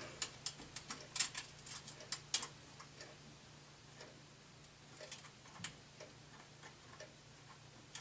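Faint, irregular small metallic clicks and taps of a screw and fingertips on the steel expansion-slot bracket of a PC case as the screw is fiddled into its hole by hand, quick little clusters in the first three seconds, then only scattered clicks.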